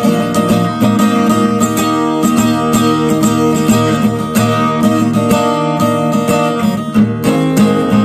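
Martinez W-91C/SB acoustic guitar being strummed, playing chords in a steady rhythm of repeated strokes.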